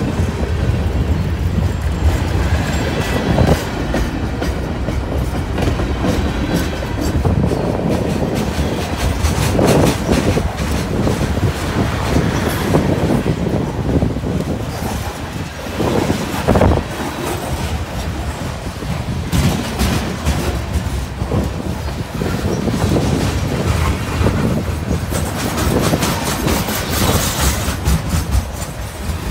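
Freight cars of a long CSX manifest train rolling past close by: a steady rumble of steel wheels on rail, with clacks and knocks here and there as the wheels pass.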